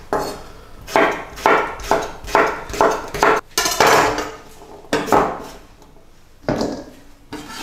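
Knife chopping cucumber on a wooden cutting board: a run of sharp knocks about two a second, spacing out after about four seconds.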